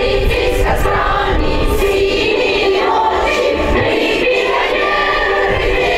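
A group of voices singing a song together.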